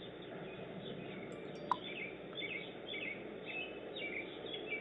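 Steady outdoor background noise through a doorbell camera's thin-sounding microphone, with birds chirping over and over from about two seconds in. A single short click about a second and a half in is the loudest moment.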